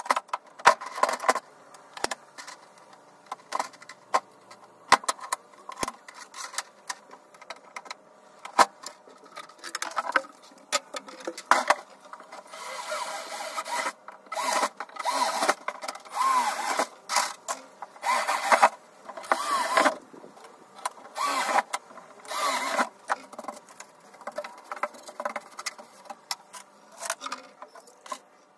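Workshop handling sounds: repeated clicks, knocks and clatter of hand tools and hardware, with several short bursts of a small power tool around the middle.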